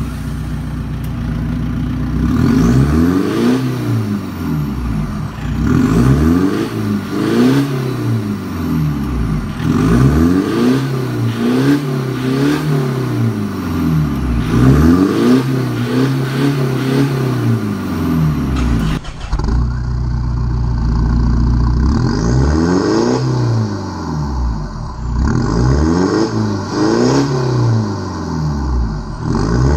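Mitsubishi Montero Sport engine with an aftermarket exhaust, free-revved repeatedly while standing still; its pitch rises and falls about every two seconds. About two-thirds of the way through the sound turns duller, heard from inside the cabin.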